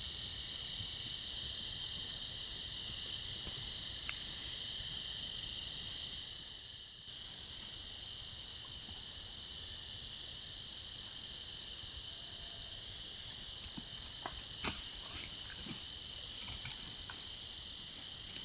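Steady night chorus of crickets, a continuous high trill that dips for a moment about seven seconds in. A few short sharp clicks come near the end, the loudest about fifteen seconds in.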